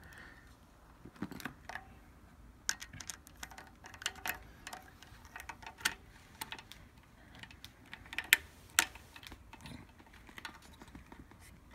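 Irregular small clicks and scrapes of a screwdriver tightening a small screw into a plastic film-sensor housing on a cup sealer's sheet-metal panel. There are a couple of sharper clicks about eight to nine seconds in.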